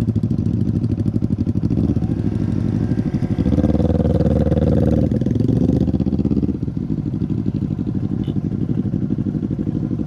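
Small underbone motorcycle's engine running while being ridden. It pulls harder, rising in pitch about three and a half seconds in, then eases off about three seconds later.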